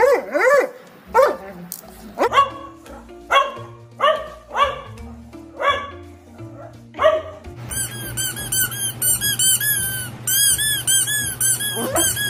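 A dog barking: about ten short, sharp barks spread over the first seven seconds. After that, a fast run of high squeaks repeats several times a second over a low, steady hum.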